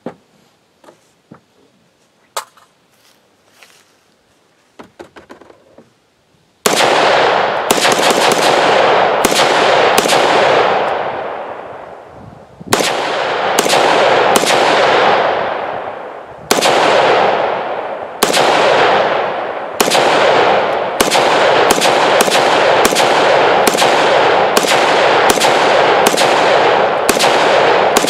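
A few light knocks and clicks as the rifle is set on the roll cage, then a Ruger AR-556 semi-automatic rifle firing about twenty .223 rounds, single shots about a second apart at first and quicker near the end. Each loud crack is followed by a long echo that fades over a second or two.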